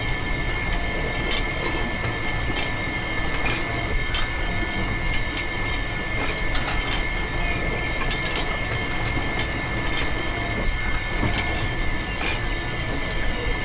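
Small electric motor of a miniature model juice press running steadily with a constant high whine, over a rattling hum and scattered light clicks.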